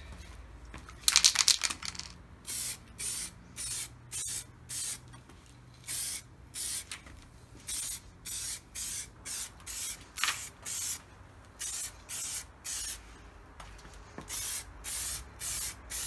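Aerosol spray-paint can hissing in many short squirts, roughly two a second with brief pauses between them. About a second in comes one louder, longer burst.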